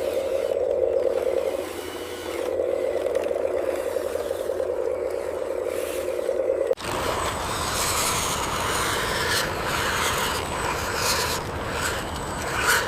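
Small RC construction machine with a steady electric motor whine, which pauses briefly about two seconds in. It cuts off abruptly about two-thirds of the way through, giving way to gritty scraping of a bucket or blade through soil and gravel.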